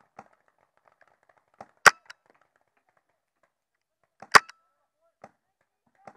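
Two sharp shots from a scope-camera-mounted game gun, about two and a half seconds apart, with faint clicks and knocks between them.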